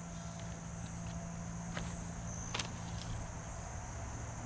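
Steady high-pitched chorus of late-summer insects over a low steady hum, with a few light clicks about halfway through.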